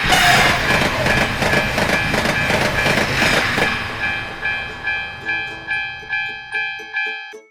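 A train rushing past a railroad crossing, its rumble starting suddenly, loud at first and fading away after about four seconds. Throughout, the crossing's warning bell rings its steady 'kan-kan' about twice a second.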